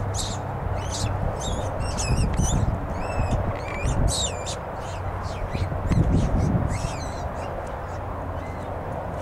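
A rabbit caught by a lurcher squealing in distress: a quick run of high-pitched cries that stops about seven seconds in. Under it are low rumbling thumps of movement and a steady low hum.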